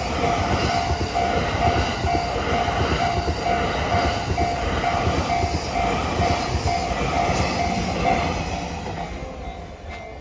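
Japanese level-crossing bell ringing its evenly repeated dings over the rumble of the Shiki-shima luxury train passing over the crossing. The bell stops about eight seconds in and the train noise fades away.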